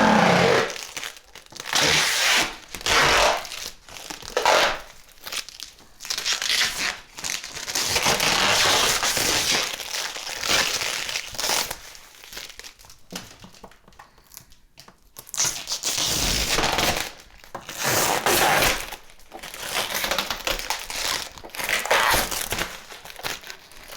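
Plastic protective wrapping being pulled off a new refrigerator and crumpled, in irregular crinkling and tearing bursts. It is louder for a couple of stretches and quieter for a few seconds in the middle.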